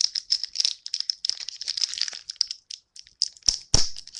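Foil wrapper of a Magic: The Gathering booster pack being torn open and crinkled in the hands: a dense, crackly rustle. There are two short knocks about three and a half seconds in.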